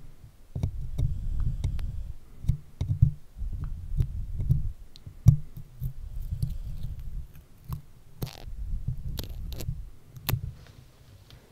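Fingers handling a microphone close up, sticking stickers on and peeling them off: muffled low thumps and rubbing against the mic, broken by many small sharp sticky clicks and a couple of brief peeling rasps.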